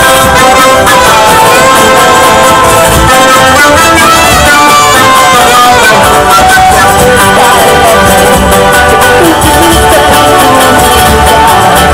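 Live band music played loud through a PA: a saya on guitars and other instruments, with several melodic lines sounding together.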